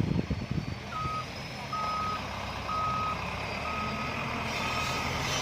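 Dump truck's reversing alarm beeping five times, about once a second, at one steady pitch, over the low rumble of its diesel engine running: the truck is backing up.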